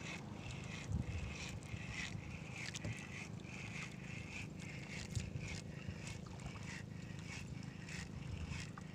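Spinning reel being cranked to retrieve line, a repeated whirr that comes in short runs about half a second long, over a steady low rumble of wind and water.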